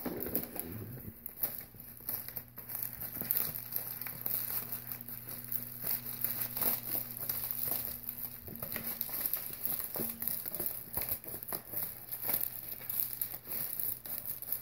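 Plastic shipping mailer crinkling and rustling in irregular bursts as it is handled and cut open with scissors.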